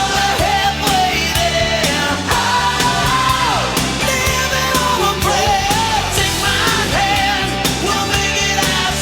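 Rock song with a singing voice over drums and guitars, playing as background music.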